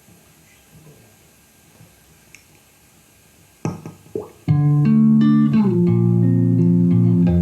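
Low room noise with a couple of short knocks about three and a half seconds in, then a karaoke backing track with bass and guitar starts abruptly, played loudly through a COV-626 active speaker.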